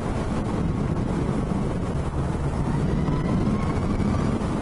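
Motorcycle on the move: a steady drone of engine and road with wind noise on the helmet microphone.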